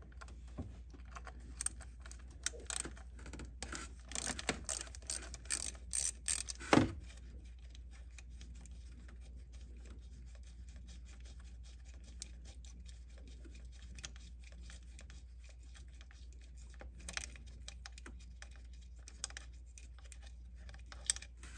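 Ratchet with a 10 mm socket clicking in quick runs as the bolts on a plastic engine coolant pipe are backed out, ending in a sharper metal knock about seven seconds in. After that, only a few light clicks of the tools.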